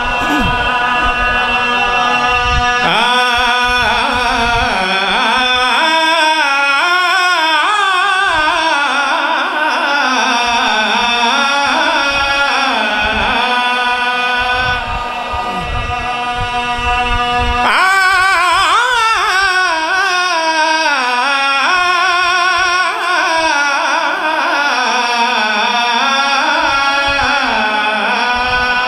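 A man's voice chanting a majlis recitation in long, wavering melodic phrases through a microphone and loudspeakers, over steady held tones. The singing comes in two long phrases with a short break in the middle.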